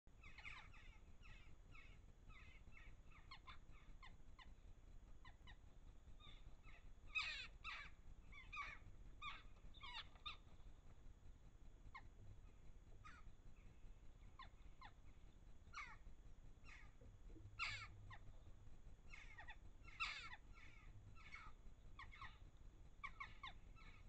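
A group of corvids calling: many short, harsh calls one after another, some overlapping, with a few louder ones.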